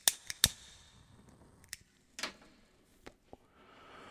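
Scattered sharp clicks and knocks, several close together in the first half second and a few more spaced out after, over a faint hiss.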